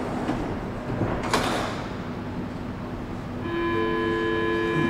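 Bombardier C30 metro car standing at a station with its sliding doors open: a single clunk about a second and a half in, then a steady electrical hum of several pitches starting a little past halfway and holding.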